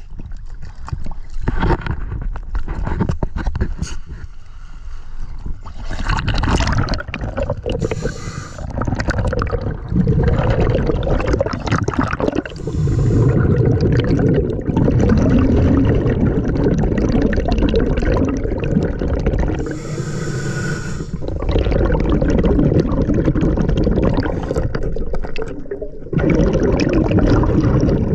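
Water splashing and gurgling around a camera as it goes from the surface to underwater, turning to a dense, muffled underwater rumble from about ten seconds in, with a brief hiss about twenty seconds in.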